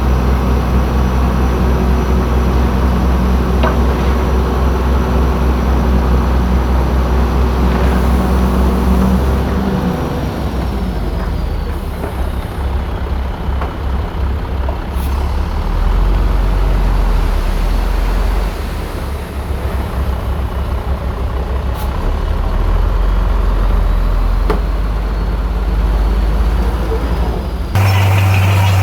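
Heavy diesel engine of a bulldozer running loud and low. It holds steady at first, then its note drops and wavers about ten seconds in, as though load or throttle changes. It shifts abruptly again near the end.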